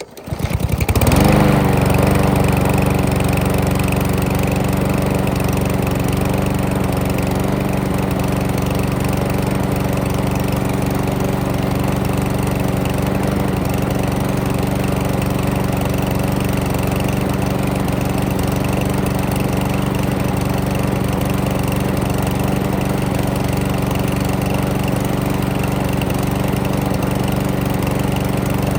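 5.5 hp Briggs and Stratton engine on a Craftsman push mower starting up, rising in pitch for about a second and then running steadily at constant speed. It is running with excess oil that got into the exhaust after the crankcase was overfilled.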